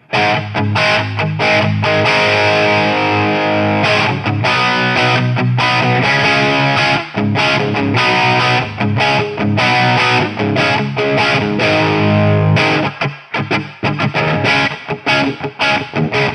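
Electric guitar played through a Mojotone British 800 kit tube amp, a JCM800-style head, with the preamp gain all the way up. It plays heavily distorted chords and riffs, has a short break late on, then faster picked strokes.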